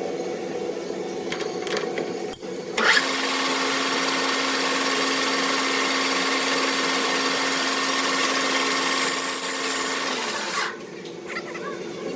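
A power tool runs with a loud, even hiss for about eight seconds, starting about three seconds in and cutting off near the end. Under it is the steady hum of a running machine, with a few clicks before the tool starts.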